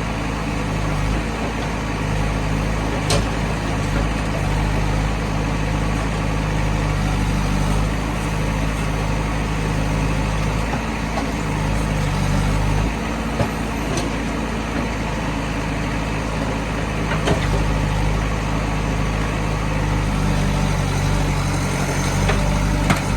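A heavy diesel engine running steadily under load, with a few sharp knocks. The most likely source is the backhoe loader or the tractor working at mud loading.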